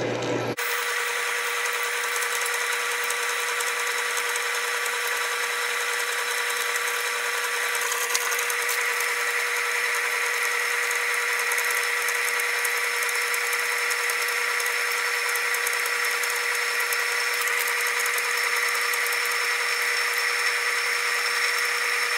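Drill press running a small drill bit through a stuck bolt, a steady whine with constant tones that starts abruptly about half a second in: a pilot hole being drilled down the centre of the bolt to extract it.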